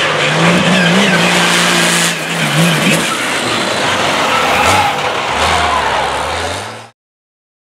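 Off-road truck's engine revving hard, its pitch rising and falling, over the hiss of big tires churning dirt; after about three seconds the engine runs at lower revs as a truck slides through loose dirt. The sound cuts off abruptly to silence about seven seconds in.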